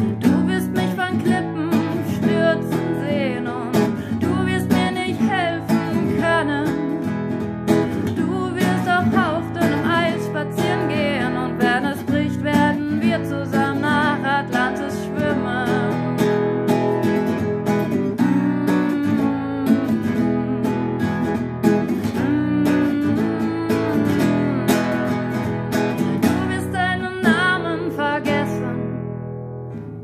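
Acoustic guitar strummed in steady chords, with a woman's voice singing over it.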